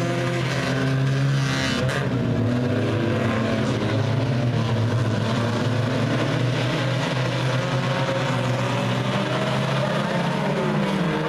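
A pack of U-car class stock compacts racing on a dirt oval, several engines running together, their notes rising and falling as the cars lap.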